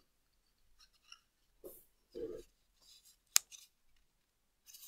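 Faint rustling of a sheet of paper being folded and creased by hand, with one sharp crisp snap about three and a half seconds in.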